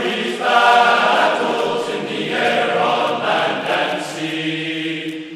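Background music: a choir singing slow, held chords that change every second or two.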